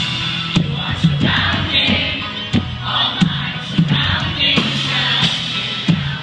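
Live rock band playing loud music with drum hits about twice a second over a bass line, with the crowd singing along, heard from among the audience.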